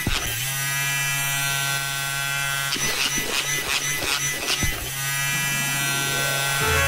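Electric vibrator buzzing steadily while it is used to whisk pancake batter in a bowl. The buzz runs in two stretches, broken for about two seconds near the middle by a rhythmic ticking.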